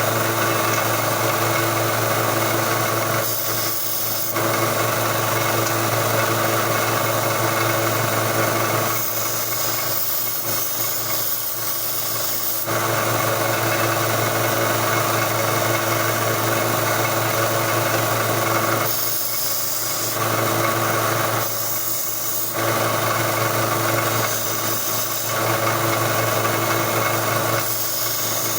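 1x30 belt sander running with a 120-grit belt while the steel handles of a pair of lineman's pliers are ground against it. The grinding hiss drops away several times as the work is lifted off the belt, leaving the sander's steady motor hum.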